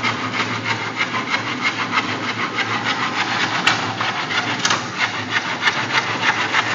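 Handsaw cutting through a wooden plank, a steady rasping with fast, even back-and-forth strokes.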